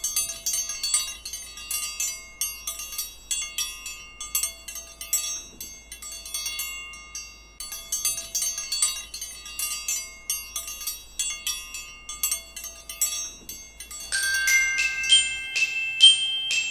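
Background music: a quick, light melody of short, high, tinkling notes on mallet percussion. About 14 seconds in, it changes to louder, longer ringing chime notes.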